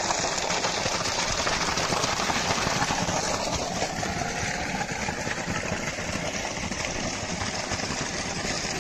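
Water gushing steadily from a PVC pump outlet pipe, a constant rushing, with a pump motor running beneath it.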